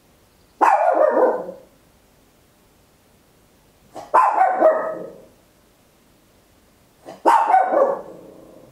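A papillon, a tiny toy-breed dog, barking very loud in three bursts about three seconds apart. Each burst is a quick run of sharp barks lasting about a second, dropping in pitch as it goes.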